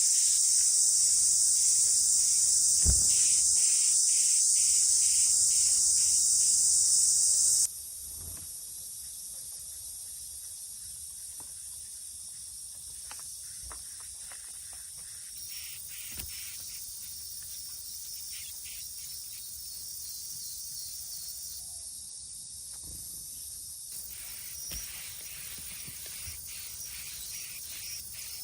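A steady, high-pitched insect drone, loud at first, drops sharply to a much quieter level about eight seconds in, with faint ticks throughout.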